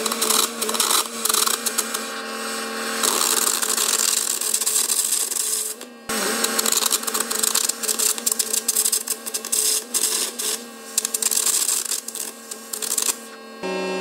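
Air carbon arc gouging on a steel baler cross member: the arc and compressed-air jet give a loud, dense crackling hiss over a steady hum. It breaks off briefly about six seconds in and stops shortly before the end.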